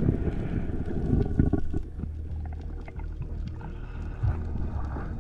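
Underwater sound from a diving camera: a steady low rumble of water noise with scattered short clicks and a few short faint tones.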